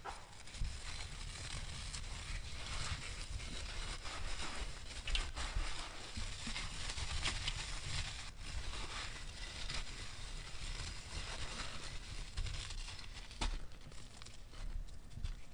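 Dry sand-and-cement block crunching and crumbling as hands squeeze it apart, a continuous gritty crackle of many tiny grain clicks. Near the end, loose gritty sand trickles and patters down through the fingers.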